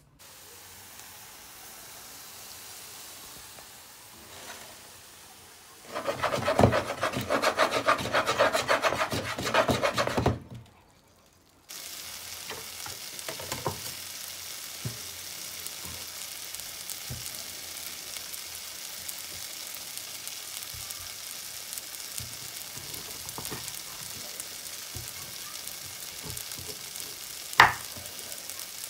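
Onions and tomatoes sizzling steadily in a frying pan, with scattered light knocks of a knife on a wooden cutting board and one sharp knock near the end as a corn cob is cut through. Earlier there is a loud, dense run of rapid strokes lasting about four seconds, followed by a brief drop to near silence.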